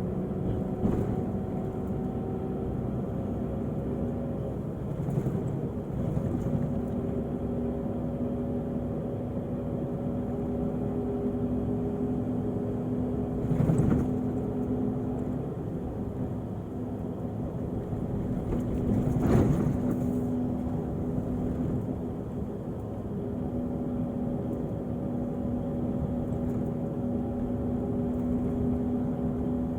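Diesel engine of a Volvo-chassis Irizar i6s coach running with a steady drone. Its pitch steps up a little about five seconds in. Two brief louder surges come around the middle.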